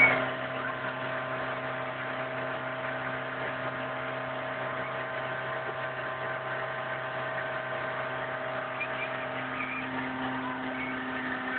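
Motorboat engine running at a steady speed underway, a constant even drone. A short loud sound comes right at the start.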